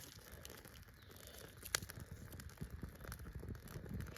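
Faint crackling and rustling of dry tinder burning and being handled, many small scattered clicks with one sharper snap a little under two seconds in.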